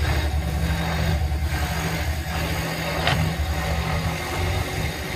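Woodstar SD16 scroll saw running, its blade stroking up and down as it cuts a wooden board: a steady low hum, with one short sharp tick about three seconds in.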